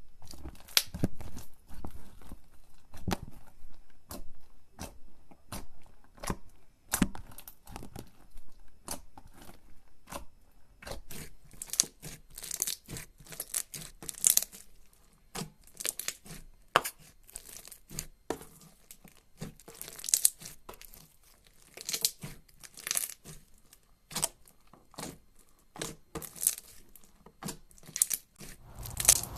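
Slime being squeezed, poked and stretched by hand, giving a dense run of irregular sticky pops and crackles.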